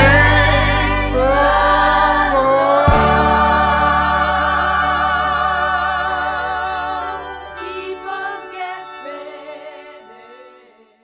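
A group of voices singing a gospel song, holding its long final chord, which fades away to nothing near the end.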